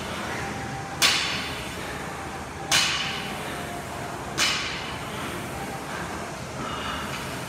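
Barbell loaded with bumper plates touching down on the rubber gym floor between deadlift reps: three sharp clanks about a second and a half apart, each with a short ringing tail.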